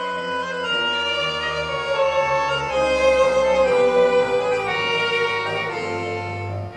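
Tango ensemble playing, led by two violins bowing a slow melody of long held notes over sustained low notes. The music swells to its loudest in the middle and eases off near the end.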